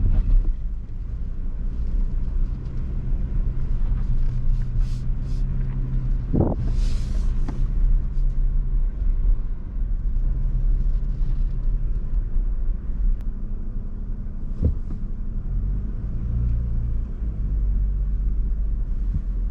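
2022 Nissan Frontier Pro-4X's 3.8-litre V6 running at low speed on a rough trail, a steady low drone. A few sharp knocks come through as the truck crosses rough ground, and a brief rush of noise comes about six and a half seconds in.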